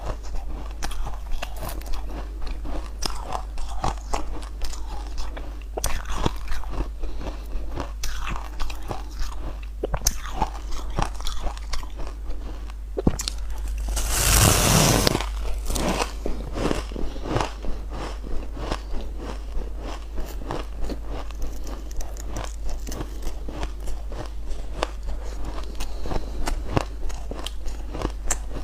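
Close-miked crunching and chewing of packed shaved ice: many short, sharp crunches as it is chewed, with one loud, longer crunching bite about halfway through. A steady low hum lies underneath.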